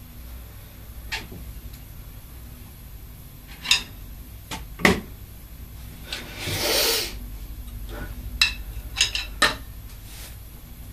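Scattered wooden clicks and knocks of drumsticks being handled and tapped lightly around a drum kit, about eight in all, with a rushing noise that swells and fades for about a second midway.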